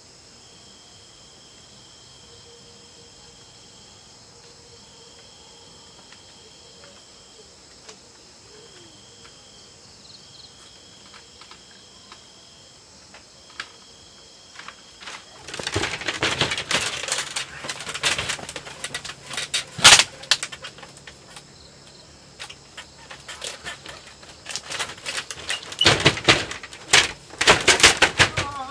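Crickets and other night insects chirping in steady trills that start and stop. About halfway through, loud close rustling and clattering takes over, with a sharp knock a few seconds later and more clatter near the end.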